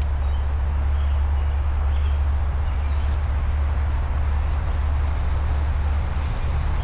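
Woodland ambience: a steady low rumble under an even hiss, with faint short bird chirps now and then.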